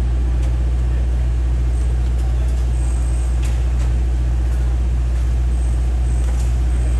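Engine of heavy construction machinery running at a steady speed: a deep, even drone. A few faint knocks come about three and a half seconds in.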